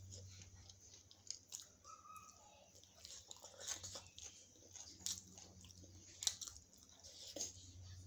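Someone chewing a steamed paneer momo close to the microphone, with soft lip smacks and scattered wet mouth clicks.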